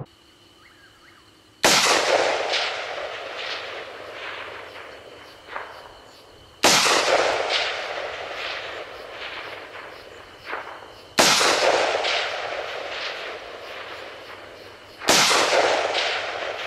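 Four single shots from an AR-15 carbine with a 16-inch barrel firing 5.56mm XM856 tracer rounds, spaced about four to five seconds apart. Each crack is followed by a long rolling echo that dies away over several seconds.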